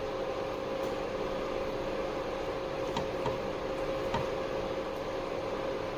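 Steady hum of a small motor with a few faint clicks, about three and four seconds in.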